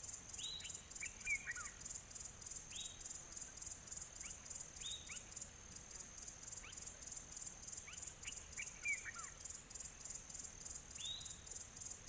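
A chorus of insects chirring in rapid, even pulses. Birds give short falling whistled calls every couple of seconds over it.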